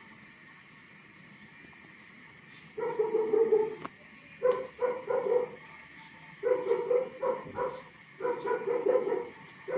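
Plush toy dog barking: runs of short electronic yaps at the same pitch each time, in four bursts of about a second each, the first starting about three seconds in.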